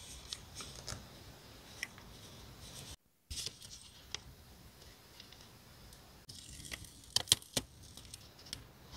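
Paper and stickers being handled at a desk: light rustling with small clicks and taps, cut off by a brief drop to silence about three seconds in, and a few sharper taps near the end.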